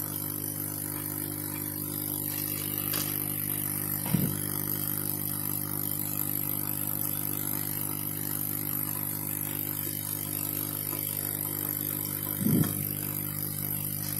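Steady hum of an electric blower running, with two brief low sounds, about four seconds in and near the end.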